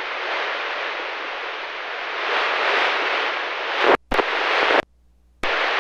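Analog FM radio hiss from a weak signal at the fringe of range, coming through the receiving radio's audio. About four seconds in, the signal fading in and out cuts the hiss off abruptly twice, the second time for about half a second.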